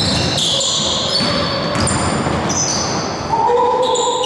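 Basketball play on a hardwood gym floor: sneakers squeaking in short high chirps and the ball bouncing, ringing in the large hall.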